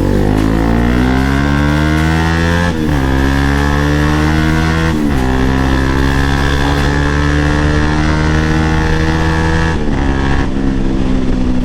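Bajaj Pulsar NS200's single-cylinder engine pulling through the gears under acceleration: the revs climb, then drop sharply at each of three upshifts, about three, five and ten seconds in.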